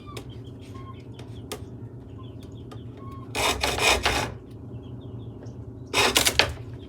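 Two rasping strokes of a hand saw cutting wood, the first about a second long and the second shorter near the end, over faint bird chirps.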